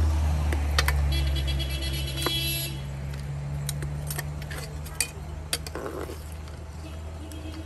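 A passing vehicle's engine drone, the bread vendor's van, fading steadily as it moves away. A brief high trill sounds about a second in, and a spoon knocks against the cooking pot a few times.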